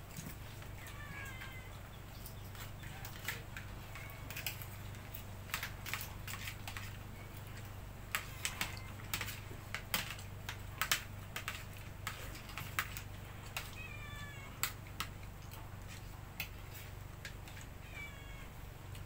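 Clam shells clicking and clattering against plates and bowls as steamed clams are picked apart and eaten, busiest about halfway through. A cat meows three times: near the start, about two-thirds through and near the end.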